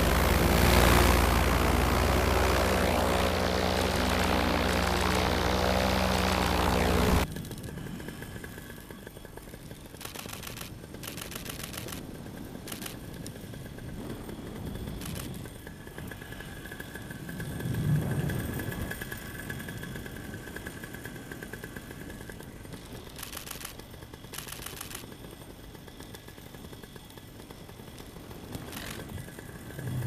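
A paramotor's engine and propeller run steadily under a rush of wind, then cut off abruptly about seven seconds in. After that a quieter hiss remains, broken by short runs of rapid clicks, typical of a DSLR camera's shutter firing in bursts.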